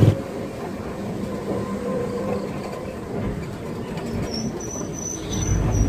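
Electric tricycle cabin on the move: steady rattling and road rumble from the body and tyres. A thin high whine comes in about four seconds in.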